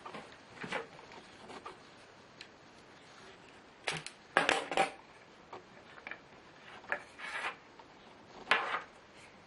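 Irregular clicks, taps and short rattles of small hard parts and tools being handled and set down, loudest in a quick cluster about halfway through and again near the end.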